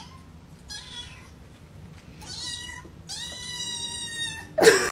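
Kitten meowing about four times, the calls growing louder and longer; the last is about a second long. A sudden loud noise cuts in near the end.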